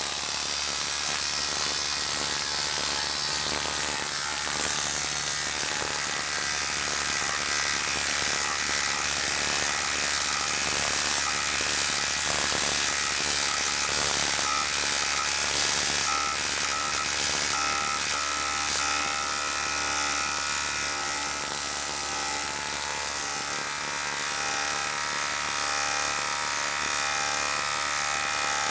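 Milwaukee M12 Fuel 12-volt brushless impact driver hammering without a break as it drives a 6-inch, half-inch lag screw into a log under heavy load.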